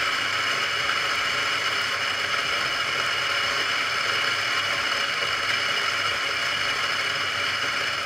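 Eureka Mignon Manuale espresso grinder with 50 mm flat burrs running steadily and loud while grinding coffee beans into a portafilter.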